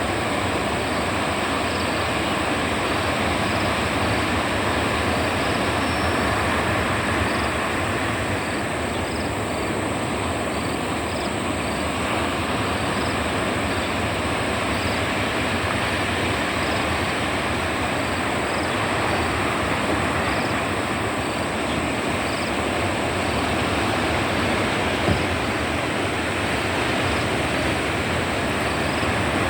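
Ocean surf: a continuous rushing wash of breaking waves that swells and eases slightly.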